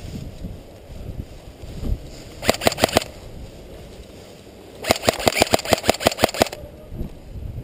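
Airsoft gun firing two bursts of rapid shots: a short burst of about five shots about two and a half seconds in, then a longer burst of about a dozen near five seconds in, roughly eight shots a second.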